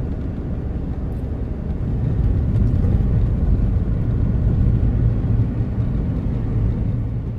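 Steady low road and engine rumble inside the cabin of a moving car, growing a little louder about two seconds in.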